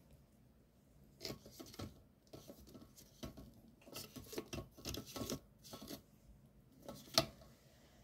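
Light rustling and crackling of a woven bamboo basket of lettuce leaves being handled: a run of irregular soft clicks, with one sharper click about seven seconds in.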